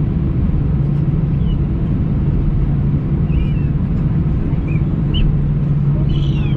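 Steady low engine drone with a few faint, short high chirps over it.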